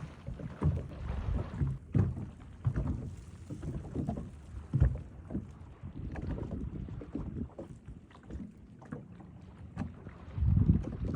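Irregular knocks and thumps in a small boat on open water, with wind on the microphone. The thumps grow louder near the end.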